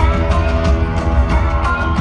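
Loud instrumental music with a heavy, steady bass, sustained pitched lines and regular percussive hits; no singing.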